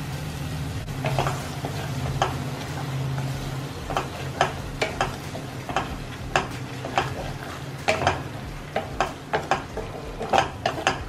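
Wooden spatula stirring and scraping a thick yogurt masala around a non-stick kadai, with frying sizzle underneath. The scraping strokes come quicker and louder from about four seconds in.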